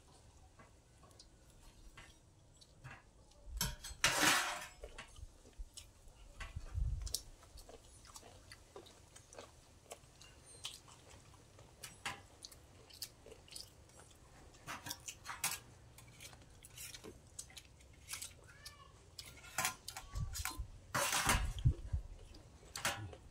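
Close-up eating sounds from a shared fish-curry meal: wet chewing and lip smacks, with scattered light clicks of a spoon against a metal tray. A couple of louder noisy bursts come about four seconds in and near the end.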